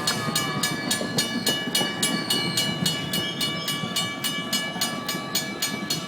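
Metrolink commuter train rolling into the station with its brakes squealing in several steady high tones over a low rumble, and a regular clanging about three times a second.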